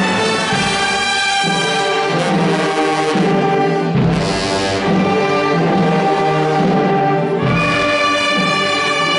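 Wind band of clarinets, flutes, saxophones and brass playing sustained full chords, with a loud percussive accent about four seconds in and another near the end.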